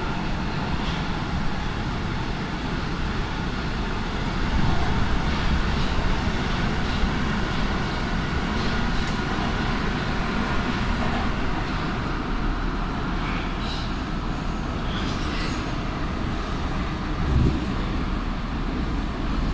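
Nuremberg U-Bahn DT1 train running through a tunnel, heard from inside the carriage: steady running noise of wheels on rail with a faint whine, a little louder from about four seconds in, and a few knocks near the end.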